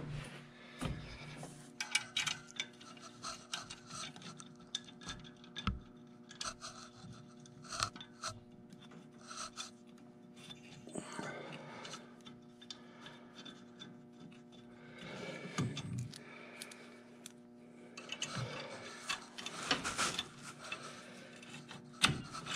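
Hands fitting bolts into a Cub Cadet 154 Lo-Boy's clutch pressure plate: irregular small metal clicks, taps and scraping rubs as the bolts are worked into their holes, over a steady low hum.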